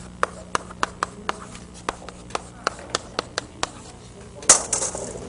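Chalk tapping on a chalkboard as equations are written: about a dozen sharp clicks, two to three a second, then a louder, longer scratchy chalk stroke about four and a half seconds in.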